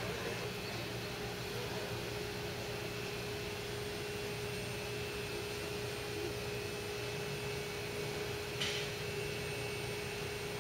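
Stationary Keikyu 1000-series electric train humming steadily at the platform, with one clear steady tone over a low hum from its onboard electrical equipment. A brief hiss comes near the end.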